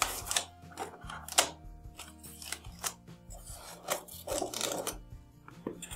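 Scissors snipping open a plastic bag of spare drone propellers, with a few sharp cuts and rustling of the plastic, over faint background music.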